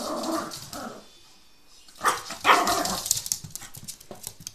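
Small long-haired dog barking: two barks right at the start and two louder ones about two seconds in.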